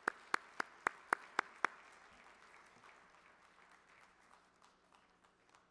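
Hand clapping close to a podium microphone, about four sharp claps a second, stopping about a second and a half in, over audience applause that fades away.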